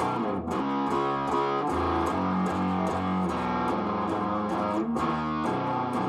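Electric guitar played through the Hoover Hog, a handmade two-knob overdrive/distortion pedal cranked all the way up, playing a heavy distorted riff of chords, with a brief break about five seconds in.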